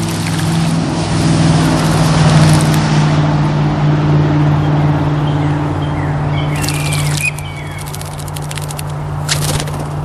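Steady low hum of a motor vehicle engine from road traffic, easing off about seven seconds in. A few short bird chirps and some sharp clicks come near the end.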